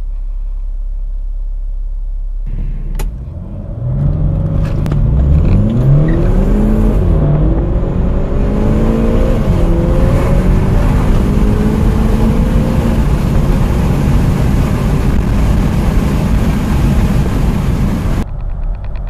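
Car engine heard from inside the cabin during a full-throttle 0–100 km/h run. It idles steadily at first, then the revs climb and drop back several times as it shifts up through the gears.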